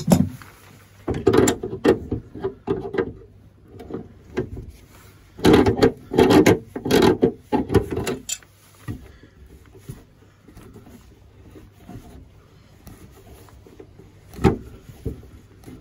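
A metal wrench clicking and scraping on a brass compression nut as it is worked loose from the plastic threaded tail of a toilet fill valve, in two bursts of a few seconds each, then quieter fiddling by hand and a single sharp knock near the end.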